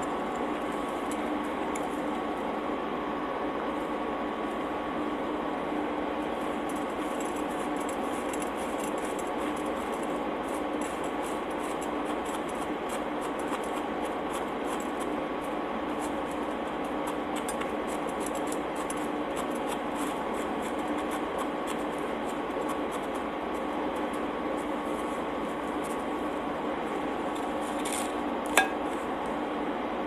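Steady background hum with two constant tones, under faint scattered clicks from pizza being handled and eaten. One sharp click comes near the end.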